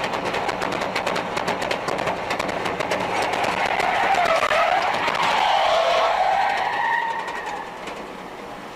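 Tyres squealing under hard emergency braking: a loud, wavering screech from about three seconds in that fades out near the end. Beneath it, road noise and a rapid clicking rattle, strongest early on.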